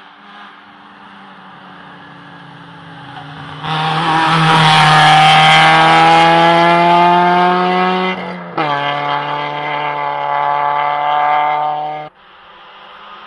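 Rally car engines at high revs: a hatchback rally car passes flat out, its engine note climbing as it accelerates for about four seconds, then after an abrupt break a second stretch of high-revving engine, slightly falling in pitch, that cuts off suddenly near the end.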